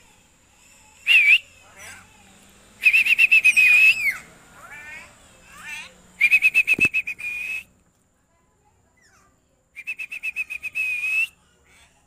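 A short whistle, then three longer fluttering, trilled whistles at a steady high pitch, each over a second long, with faint chirps between them.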